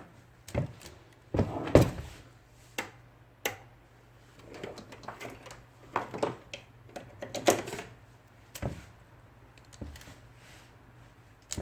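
Irregular light clicks and knocks of hands working on the mechanism of an IBM Selectric II typewriter while fitting its return cable, over a low steady hum.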